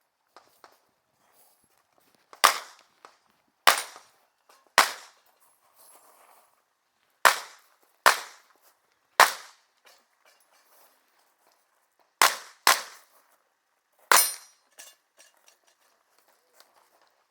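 Competition revolver shots fired on a practical shooting stage: nine sharp shots in bursts of three, three, two and one, with pauses of a second or two between the groups.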